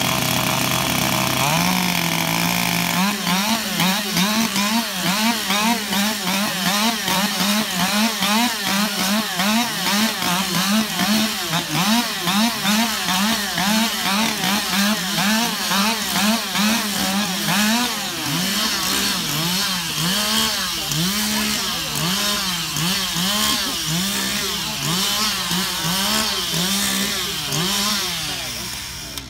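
Several chainsaws running at once, cutting logs. Their engines hold a steady note for the first few seconds, then rev up and down over and over, about twice a second at first and more slowly in the second half.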